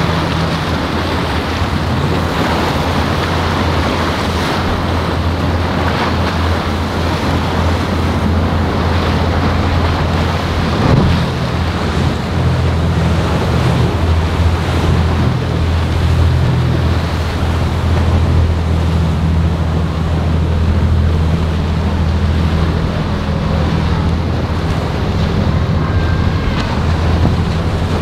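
Motor yacht engines droning at speed, with the rush and splash of the hull's wake and spray, and wind buffeting the microphone.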